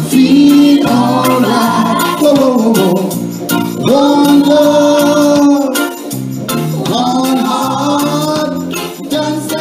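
A man singing long, sliding held notes into a microphone over a recorded backing track with a bass line and a steady beat, played through a PA speaker.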